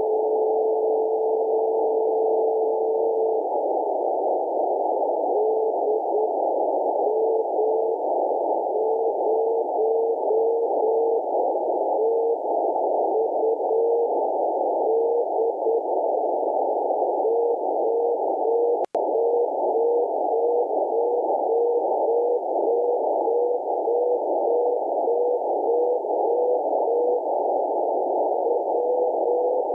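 10 GHz amateur radio beacon DM0TUD heard through an RTL-SDR in CW mode: a steady carrier tone for the first three seconds or so, then the same tone keyed in Morse code over the receiver's narrow-filtered hiss. The tone is clean, without noticeable phase noise, thanks to the crystal-controlled LNB. The audio cuts out for an instant about 19 seconds in.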